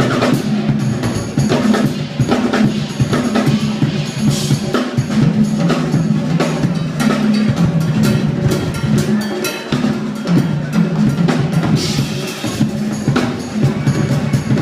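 Drum kit solo played live: fast, dense strikes on snare, bass drum and cymbals over a held low note underneath.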